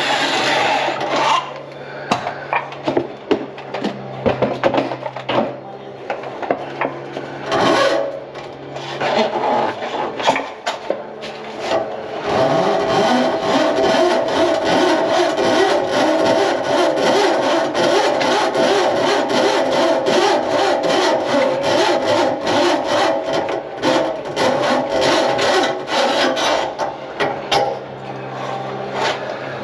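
Drain snake cable scraping and rattling inside a clogged kitchen sink drain pipe. It is broken and clicky at first, then becomes a continuous rasping about twelve seconds in, dotted with rapid clicks.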